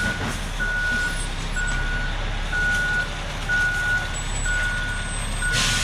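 Concrete mixer truck's reversing alarm beeping about once a second, each beep a steady high tone, over the low, steady running of the truck's diesel engine.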